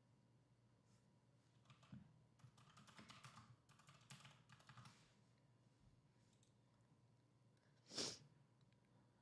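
Faint computer keyboard typing: a quick run of key clicks lasting about three seconds. A short puff of noise near the end is the loudest sound.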